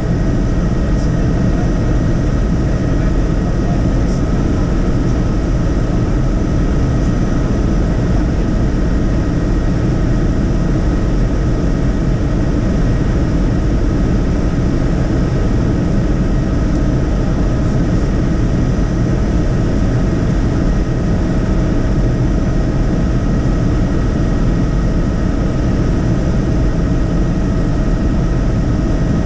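Helicopter in steady cruising flight, heard on board: a loud, unchanging drone of rotor and engine noise with a steady whine on top.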